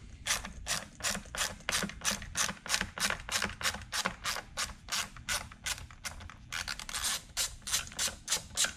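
Small hand socket ratchet clicking steadily, about three to four clicks a second, as it backs a screw out of a steering wheel's switch panel. The clicking stops just before the end.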